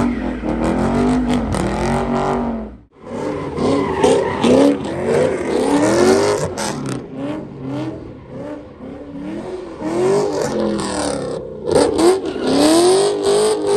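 Muscle cars doing donuts and burnouts: engines revving up and down over and over while the tyres squeal and hiss on the pavement. The sound breaks off suddenly about three seconds in, then picks up again.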